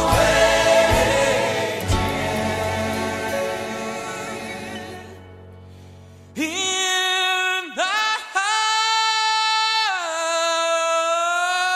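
Music with choir singing fades away over the first six seconds; then a single unaccompanied voice sings a few long held notes.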